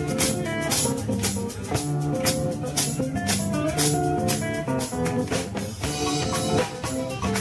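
Live band playing with a steady beat: drum kit, electric bass and guitars.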